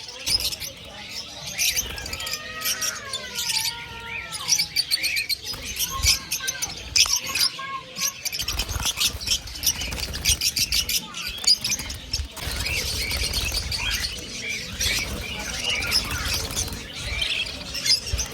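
Many caged birds chirping at once, a dense, rapid twittering, with a few sliding whistles in the first few seconds. From about halfway on a low rumble runs underneath.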